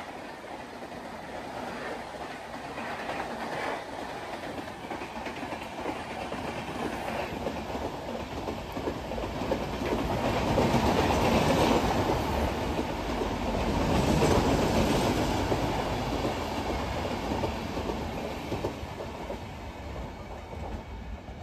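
Express passenger train coaches passing at speed, wheels clattering over the rail joints. The rumble builds to its loudest about halfway through, then fades as the train draws away.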